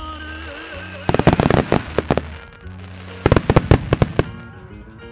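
Fireworks shells bursting in two rapid volleys of sharp bangs, about a second in and again about three seconds in, over music.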